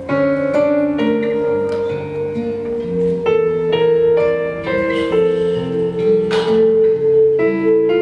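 Instrumental music, a high held tone over a changing bass line, with a brief rushing swell about six seconds in.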